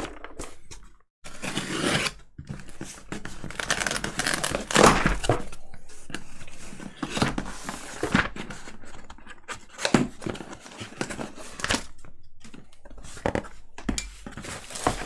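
Keycap package being opened by hand: packaging tearing, rustling and crinkling in irregular bursts, with sharp light knocks and clicks between them.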